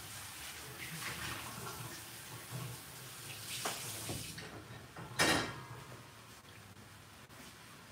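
Kitchen sink tap running as an item is rinsed under it, shut off about four seconds in, followed about a second later by a short loud clatter.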